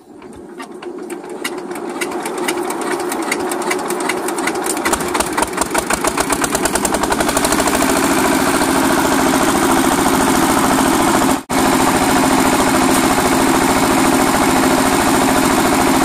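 Old single-cylinder diesel engine starting up: its separate firing strokes come quicker and louder over the first several seconds until it settles into a steady, even run.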